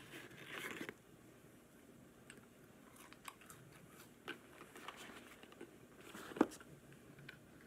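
A person biting and chewing breaded ghost pepper chicken fries, with small crunching clicks. Paper carton rustles in the first second, and there is one sharp tap about six and a half seconds in.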